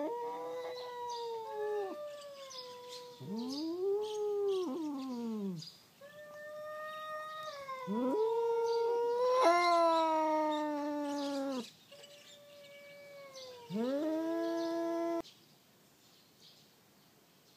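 Cats yowling at each other in a territorial standoff before a fight: a string of long, wavering threat wails that rise and fall in pitch, one after another, stopping about fifteen seconds in.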